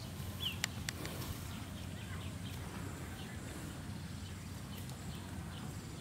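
Quiet open-air field ambience: steady low background noise, a few faint clicks under a second in, and one brief high bird chirp.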